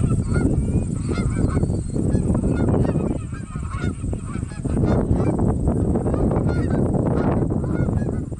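A flock of Canada geese honking repeatedly, with a heavy low wind rumble on the microphone.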